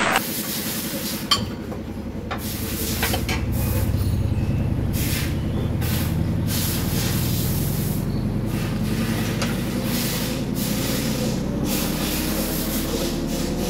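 A steady low mechanical hum that rises slightly in pitch toward the end, with short hisses every second or so and a single click about a second in.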